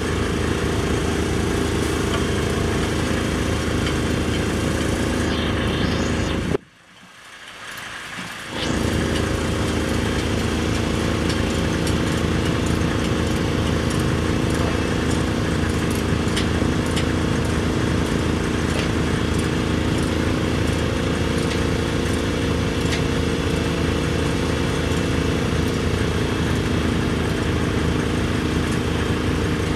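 Heavy engine idling steadily, with faint metallic clinks over it. The whole sound cuts out for about two seconds roughly seven seconds in, then returns.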